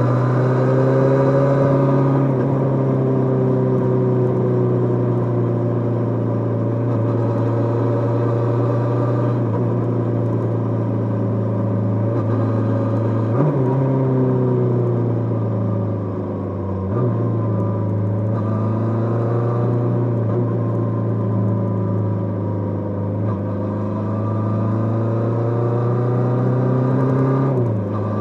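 Kawasaki GPz550 inline-four engine running under way, its note slowly sinking and climbing with the throttle. There are short breaks in the note about halfway through, again a few seconds later, and at the very end, as from gear changes.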